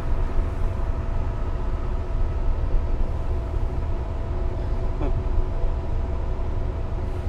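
Class 37 diesel-electric locomotive's English Electric V12 engine idling, heard from inside the cab: a steady low rumble with a few steady humming tones above it.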